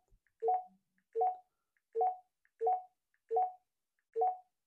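Keypad beep of a Retevis RA685 handheld radio: a short two-tone bleep at each press of the arrow key, six in a row about every three-quarters of a second, as the transmit CTCSS tone is stepped up value by value.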